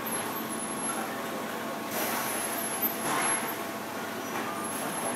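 Factory floor machinery running with a steady hum, with two short hisses about two and three seconds in.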